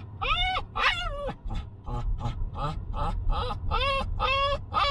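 A dog whining over and over, short high cries about two a second, each rising and then falling in pitch, the first few the loudest.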